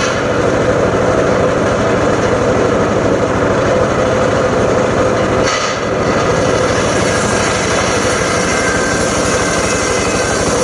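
A homemade engine-driven circular saw rig running steadily, with a brief dip in level about five and a half seconds in.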